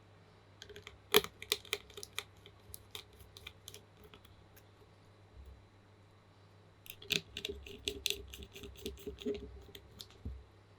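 Typing on a TU40 plateless mechanical keyboard with lubed Gateron Pro Milky Yellow linear switches: two bursts of quick, irregular key clacks with a pause of about two seconds between them, one strike early on much louder than the rest.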